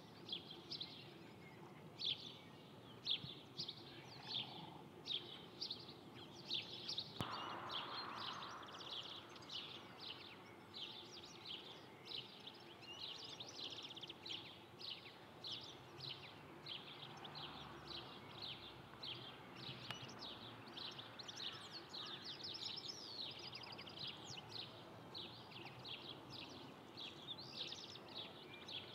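Small birds chirping: a dense, continuous run of short high calls, several a second, over faint background noise.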